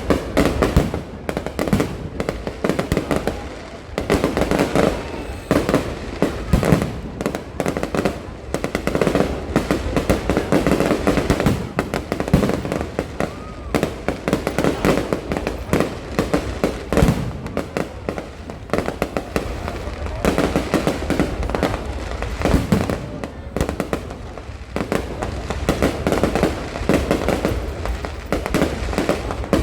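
Fireworks going off in rapid, irregular succession: a dense run of bangs and pops with no real pause.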